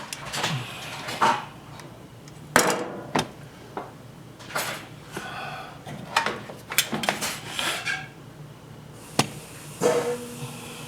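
Irregular metal knocks and clanks of tools working on a washing machine's metal parts during disassembly. The last clank, near the end, leaves a brief ringing tone.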